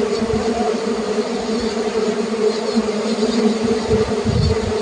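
Many honeybees buzzing together in a steady, even hum, with a brief low rumble about four seconds in.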